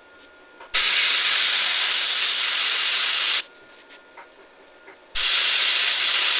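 Plasma cutter cutting through a steel truck frame rail: two stretches of loud, steady hiss that start and stop abruptly, the first about two and a half seconds long starting just under a second in, the second starting about five seconds in.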